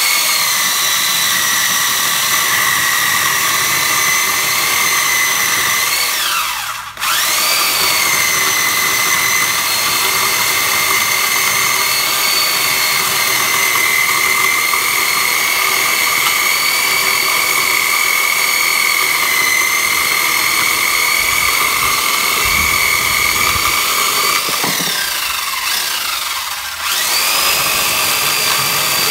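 2800 W mains-powered electric chainsaw with a 48 cm bar, its brushed motor running at full speed while the chain cuts through a wooden log: a loud, steady high whine over the rasp of the chain. Twice, about six seconds in and again near 25 seconds, the whine winds down and then climbs sharply back up as the motor spins up again.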